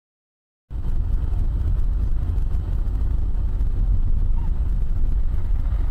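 Moving car's engine and road noise as picked up by a dashcam, a steady low rumble that starts abruptly under a second in.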